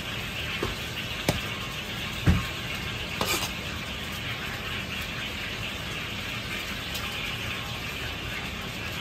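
A few sharp knocks of a knife and cleaver against a plastic cutting board as raw chicken is cut up, the loudest about two seconds in, over a steady rushing kitchen background.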